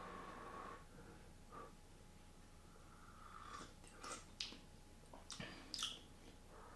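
A person faintly sipping and slurping hot tea from a mug, with soft breaths between. A few short slurps come about four to six seconds in.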